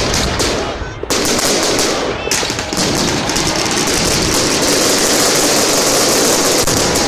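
Fireworks display: aerial fireworks going off in a rapid, almost unbroken barrage of bangs and crackle that thickens about a second in.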